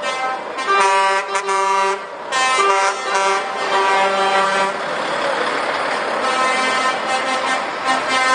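Truck air horns sounding in several long, steady blasts as heavy trucks roll past, with a rush of engine and tyre noise between the blasts.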